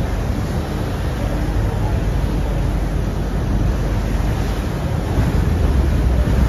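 Wind buffeting the microphone on the open deck of a moving ferry, over the steady rush of water along the hull.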